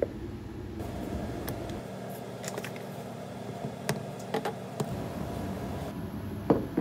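Wooden spoon stirring thick soup in a metal pot, with several light knocks of the spoon against the pot. Near the end, a plate set down on a glass tabletop with a sharp clack.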